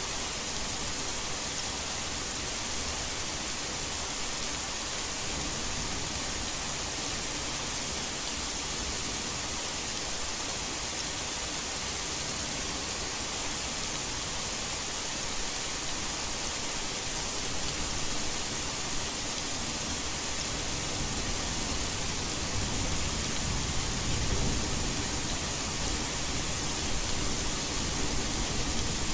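Heavy rain falling as a steady, even hiss. In the last several seconds a low rumble of thunder rises.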